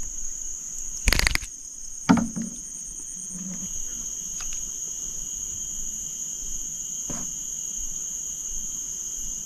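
Steady, high-pitched chorus of insects, with a second, lower insect drone joining about three and a half seconds in. A cluster of loud clicks about a second in and a sharp knock about two seconds in stand out above it.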